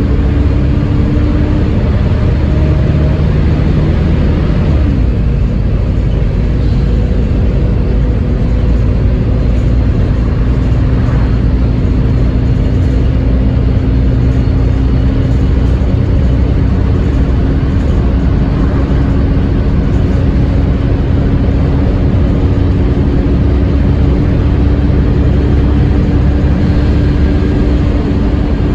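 Wright Eclipse Gemini double-decker bus under way, its engine rumble overlaid by the Voith automatic gearbox's steady, vacuum-cleaner-like whine, known as 'hoovering'. The whine drops in pitch about five seconds in, then holds almost level.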